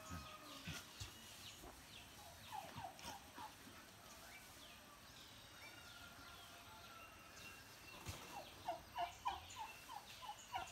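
A bird calling in two rapid runs of short, repeated notes: a brief run about a quarter of the way in and a longer one near the end. Fainter chirps sound behind it.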